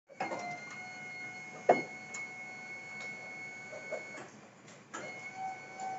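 Wing van truck's wing-lifting hydraulic pump running with a steady whine as the side wing rises, stopping about four seconds in and starting again about a second later. A sharp knock about a second and a half in.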